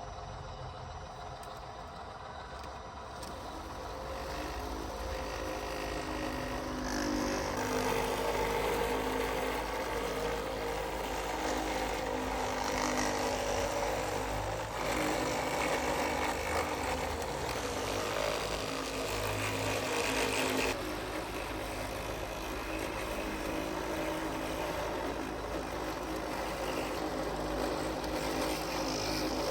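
Small electric motors and gearing of radio-controlled model construction vehicles running, a steady mechanical whine that grows louder a few seconds in and eases a little about two-thirds of the way through.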